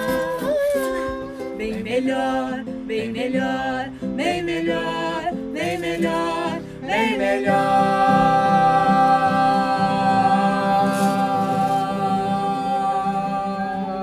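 A man and a woman singing a wordless melody together over acoustic guitar, then holding one long final note through the second half that slides down and fades at the very end.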